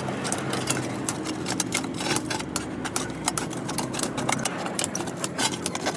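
Rapid, irregular clicks and taps over a steady low mechanical hum.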